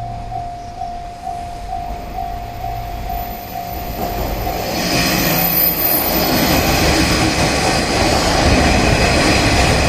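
A level-crossing bell rings in quick, even strokes while a three-car 1200-series diesel railcar train approaches. From about five seconds in, the train's running noise on the rails swells and gets louder as it rolls slowly over the crossing, covering the bell.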